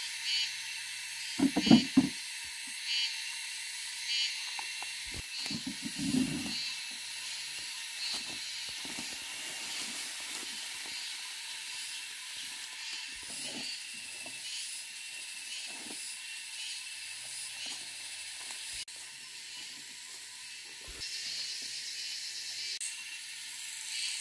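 Steady, high, hissing insect chorus that pulses about once a second. A few thumps and rustles of someone working in the undergrowth are louder, about two seconds in and again around six seconds.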